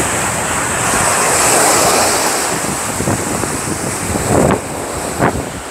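Sea surf breaking and washing up a sandy beach, swelling a little a second or two in, with wind buffeting the microphone.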